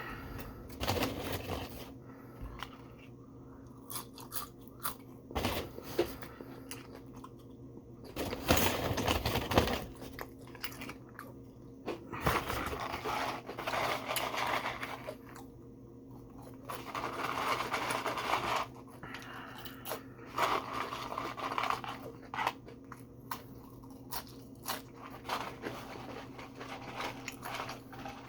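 A person chewing and crunching curly fries close to the microphone, with irregular crunches and a few louder stretches of chewing, over a steady low hum.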